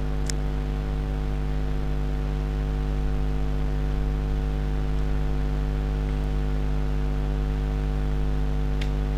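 Steady low electrical hum with several higher tones layered above it, unchanging throughout, over a faint hiss. There is a faint click near the start and another near the end.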